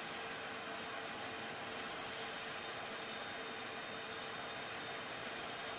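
Steady rushing noise with a high, even whine on top, typical of aircraft turbine machinery running.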